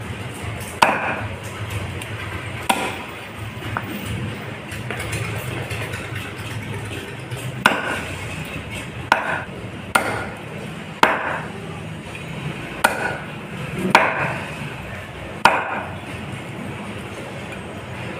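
A cleaver chopping grey emperor fish into pieces on a chopping block. There are about ten sharp chops at irregular intervals, coming closer together in the second half, over a steady low background noise.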